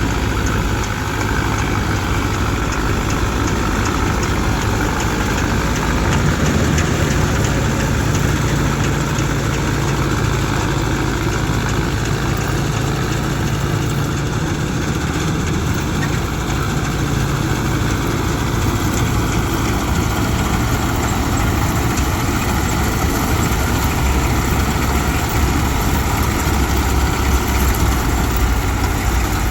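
Heavy diesel engine of farm machinery running steadily, its low hum shifting in pitch a few times.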